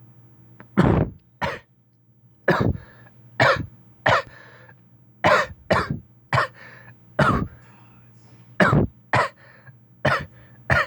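Short harsh coughs, about a dozen in quick succession, some in close pairs, over a faint steady low hum.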